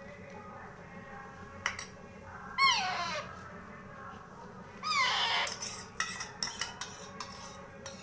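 Hand-fed parrot chick giving two begging calls about two seconds apart, each a harsh squawk that falls in pitch. Between the calls come a few sharp clicks of the feeding spoon against its beak.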